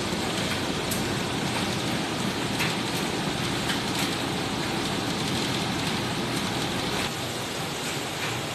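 Steady running noise of a ship's laundry room: banks of washing machines and tumble dryers working, with a few faint clicks. The noise drops a little about seven seconds in.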